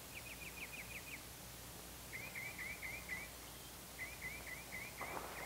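Faint runs of quick, high chirps from a small woodland animal or bird, about five to seven notes to a run, repeated four times with short pauses between.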